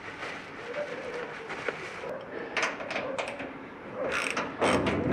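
A ratchet spanner clicking as bolts are undone from a machine's side panel. There are a few sharp metallic clicks after about two and a half seconds, louder near the end.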